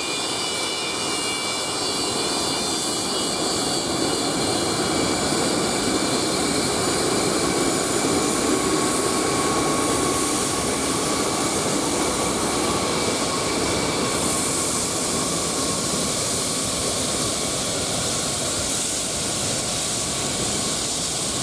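Antonov An-124's four D-18T turbofan engines at taxi power: a loud, steady jet roar, with a high multi-tone whine plain in the first few seconds. The roar swells a little midway as the aircraft taxis by.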